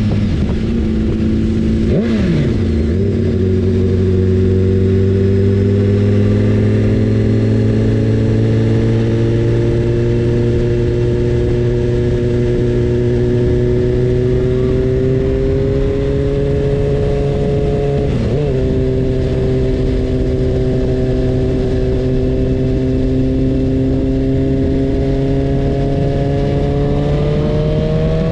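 BMW S1000RR inline-four sportbike engine running under way, its pitch climbing slowly as the bike holds a gear, with a brief break and drop in pitch about two seconds in like a gear change and another short break about eighteen seconds in.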